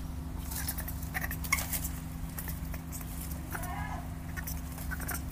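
Baby monkeys moving about: scattered light taps and scuffles over a steady low hum, with one short call about three and a half seconds in.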